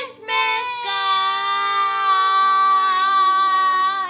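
A boy and a woman calling out together in one long, held, sung note lasting about three and a half seconds, steady in pitch, cut off just before the end.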